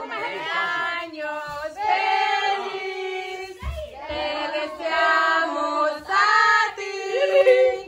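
Several voices singing a song together, children's voices among them, in phrases with long held notes and short breaks between lines.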